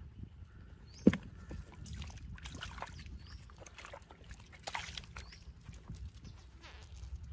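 A sharp thud about a second in as a wriggling catfish is dropped into a foam box, then wet squelching, splashing and small knocks as hands grope through a shallow hole of thick muddy water.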